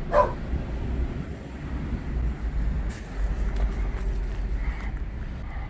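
Low, steady outdoor background rumble with a few faint clicks, and a short falling sound right at the start.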